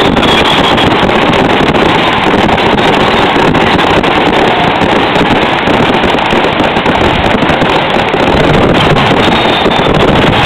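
Fireworks going off in a dense, continuous barrage, bursts and crackles so close together and loud that they blend into a steady rumble.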